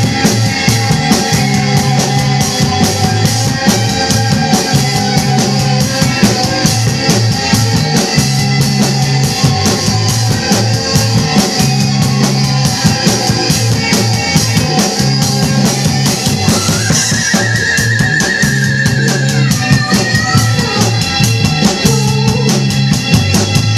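Acoustic rock drum kit played along with a rock recording: a steady, busy beat of bass drum, snare and cymbals over held band tones, with a wavering lead melody coming in a little past the middle.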